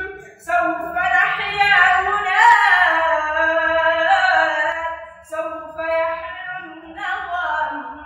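A boy singing an Arabic nasheed solo in long, ornamented phrases, over a quieter steady backing. There is a short break about five seconds in, and the last phrase slides down in pitch near the end.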